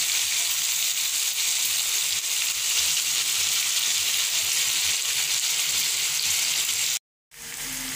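Chicken pieces frying in hot oil with browned curry powder in a frying pan, a steady sizzle. About seven seconds in it cuts off sharply for a moment, then a quieter sizzle resumes.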